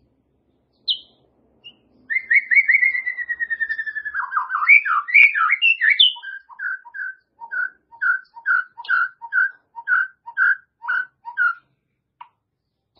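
White-rumped shama (murai batu) singing. After two short call notes it gives a fast run of falling notes and a few sweeping whistles. It then settles into a long series of short paired whistles in an even rhythm, with a single note near the end.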